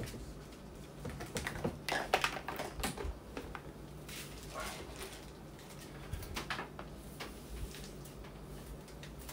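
Handling sounds from a blender's plastic motor base as it is turned over and set down on a table: scattered light clicks, knocks and rustles, busiest between about one and a half and three seconds in and again around six and a half seconds. The motor is not running.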